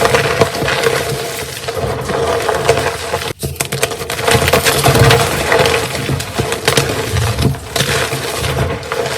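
Blocks of gym chalk being crushed and crumbled, a dense, continuous crunching and crackling with a brief break about three and a half seconds in.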